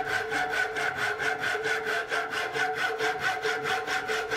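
Japanese-style handsaw cutting across the end of a wooden Windsor chair leg in quick, even strokes, about four to five a second, with a steady tone from the blade under the rasp of each stroke.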